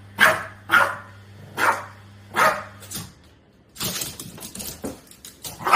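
Boston terrier barking at a large inflatable dog decoration: four sharp barks in the first two and a half seconds, then quieter scattered sounds.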